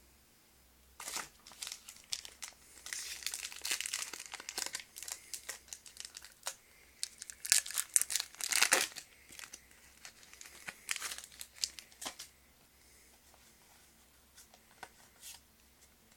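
Foil wrapper of a Pokémon trading card booster pack crinkling and tearing as it is opened by hand, loudest in a burst of tearing about halfway through, then dying down to a few light crinkles and clicks in the last few seconds.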